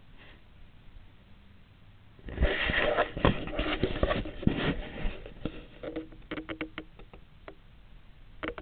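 Handling noise from the recording device: after a couple of seconds of faint hiss, a loud rustling and scraping for about three seconds as it is moved, then a run of sharp clicks and knocks.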